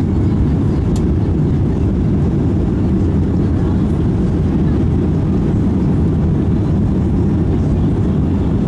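Jet airliner cabin noise on landing approach: a steady low rumble of the engines and rushing airflow heard from inside the passenger cabin, with the wing flaps extended.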